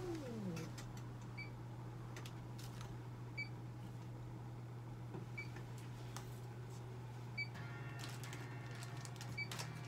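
A faint, short electronic beep from clinic equipment repeats about every two seconds over a steady low hum.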